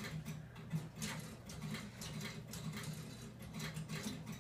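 Faint, irregular relay clicking over a low hum from CTC signalling equipment while switch 9 is thrown to reverse.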